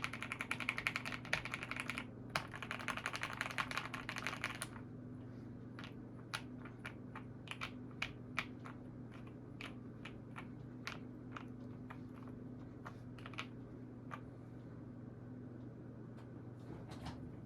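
Typing on a KBD75 v3 custom mechanical keyboard with POM Glacier Panda switches and a polycarbonate plate: a fast, continuous run of keystrokes for the first four or five seconds, then slower, separate key presses.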